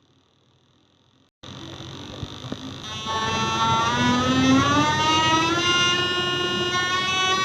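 A speaker-cleaning tone track meant to shake water and dust out of a phone or PC speaker, played back loud. It cuts in suddenly about a second and a half in with a hiss and buzz, then becomes a harsh buzzing tone with many overtones that rises slowly in pitch.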